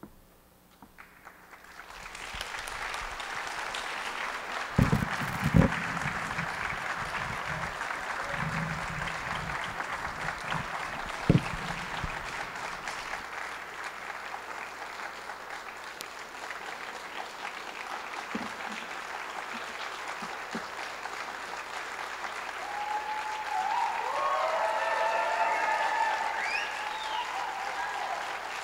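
An auditorium audience applauding, building up about two seconds in and holding steady, with a few loud thumps early on. Near the end a few cheers rise over the clapping.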